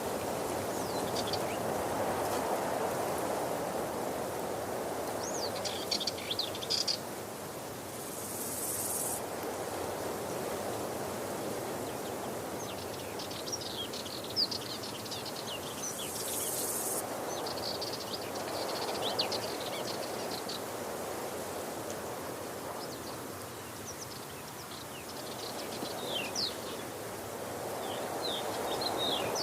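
Waterfall rushing steadily, its flow swelling and easing slowly, with birds chirping on and off over it.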